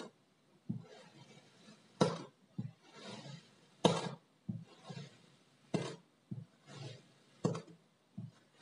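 A knife slicing through kinetic sand in repeated cuts. Each cut ends in a sharp tap of the blade on the surface below, about every two seconds, followed by a softer thud, with soft grainy crunching in between.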